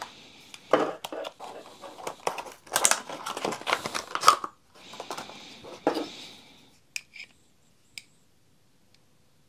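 Clear plastic blister packaging being opened, crinkling and crackling with sharp clicks as a hex key set in its plastic holder is pulled out. After that come a few single light clicks near the end.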